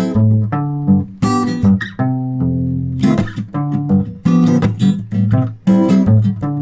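A single guitar played with a bass line and rhythm chords at the same time: low plucked bass notes under chopped, strummed chord strokes in a steady groove.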